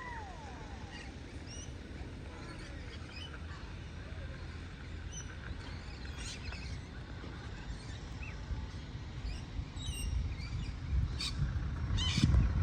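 Birds chirping here and there over a steady low outdoor rumble, with a few sharp clicks and louder low thuds near the end.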